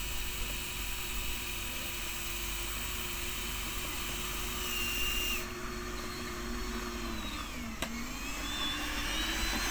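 Small electric motor of a radio-controlled truck whining at a steady pitch. About three quarters of the way through, the pitch dips and climbs back up as the motor slows and speeds again, with a click at the low point.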